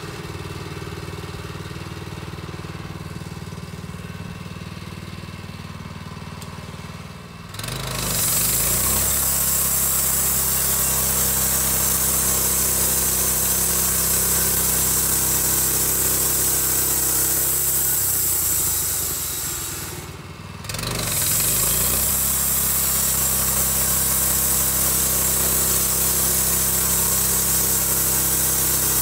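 Vallee Big Red portable band sawmill's gas engine idling steadily, then throttled up about seven and a half seconds in with the band blade running and a strong high hiss. The revs drop for a couple of seconds around twenty seconds in and then come back up.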